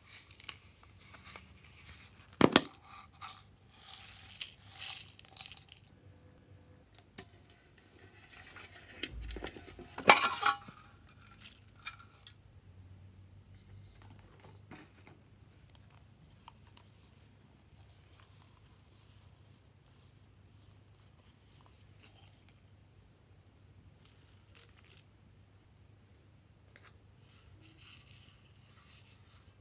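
Hands handling small plastic pots and packaging while sprinkling sequins into a glass dish of slime: rustling and crinkling, with two sharp clacks, the louder about ten seconds in, then only faint light handling.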